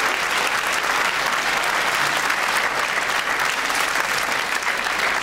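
Studio audience applauding steadily, a dense crackle of many hands clapping.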